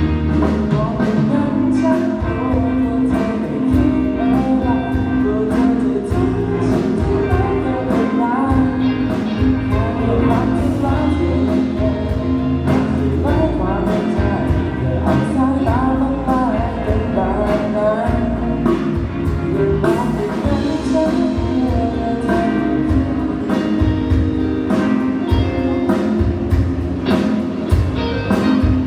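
Pop music with singing over a steady drum beat and guitar, played for a sound check.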